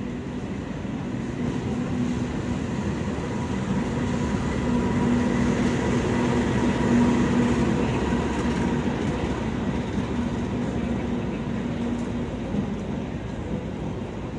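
Argo Parahyangan express passenger train, hauled by a CC 206 diesel-electric locomotive, running through the station without stopping: its carriages rumble past on the rails, with a steady low hum. It swells to its loudest about halfway through and fades towards the end.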